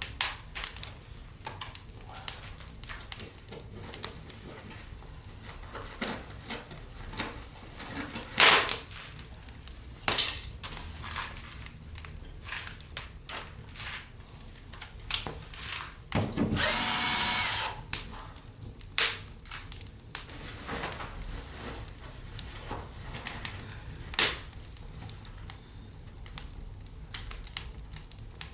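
Scattered clicks and knocks of hand work, and about two-thirds of the way through a power drill runs once for about a second and a half.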